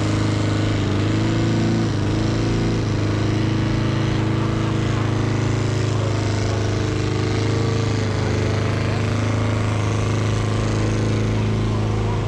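A vehicle engine running steadily at a constant speed, idling without revving.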